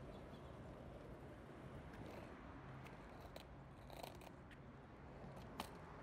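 Skateboard wheels rolling over asphalt: a faint, steady low rumble with a few light clicks.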